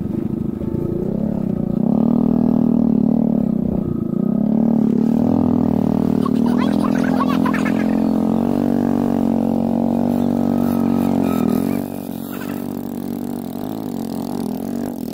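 Small single-cylinder underbone motorcycle engine running under load, its pitch rising and falling with the throttle. It drops in level about twelve seconds in.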